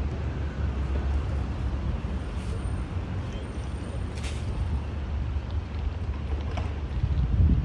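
Motor cruiser's inboard engine running at low speed as the boat passes close by, a steady low rumble that swells near the end.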